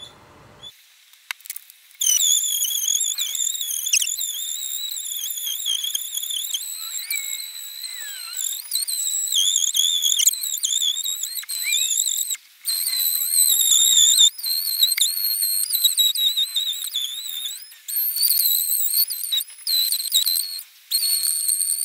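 Cicada song: a high-pitched, continuous wavering tone with overtones, starting about two seconds in and breaking off briefly a few times.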